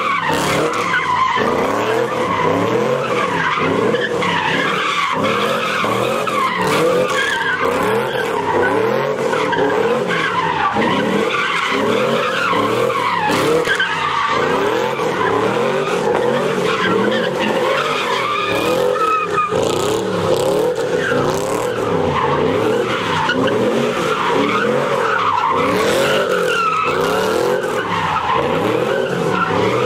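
Chevrolet Camaro doing donuts: the engine revs up and down hard and without a break while the rear tyres squeal and skid on the pavement.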